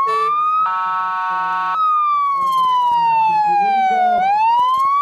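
Siren on a Tatra 148 fire engine wailing, sweeping slowly down in pitch and then rising again near the end, with a short steady horn-like tone over it about a second in.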